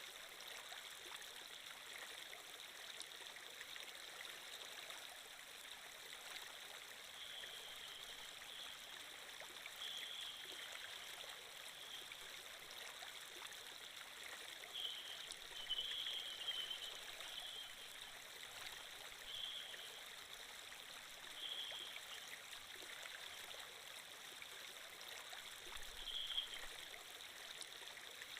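Water flow sound effect of a running stream: a steady, soft, even rush of water. Now and then a short, higher-pitched sound stands out briefly above it.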